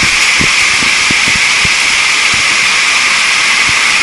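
Heavy monsoon rain pouring steadily, with scattered low taps of drops landing close by.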